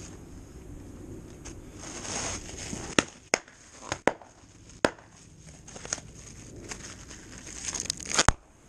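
Plastic epoxy containers and their packaging being handled: crinkling and rustling with several sharp clicks and snaps, the loudest snap near the end.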